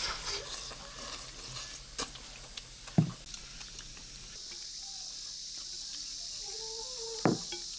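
Quiet table sounds of a meal: a few soft knocks of chopsticks and bowls, with a faint steady hiss starting about halfway through.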